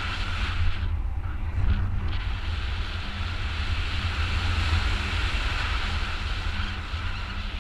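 Wind rushing over a GoPro action camera's microphone in flight under a paraglider: a steady deep buffeting rumble with a hiss above it, the hiss easing briefly about a second in.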